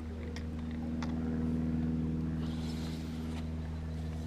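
Steady low mechanical drone of a running motor, even and unchanging, with a few faint ticks over it.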